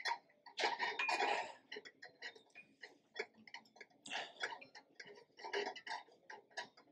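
Gym background noise: irregular light clicks and knocks, several a second, with a louder burst of noise about a second in.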